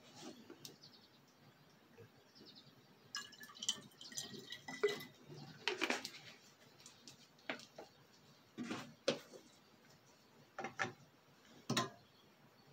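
Scattered faint taps, clinks and drips from handling a glass separatory funnel and a bottle of saturated salt solution.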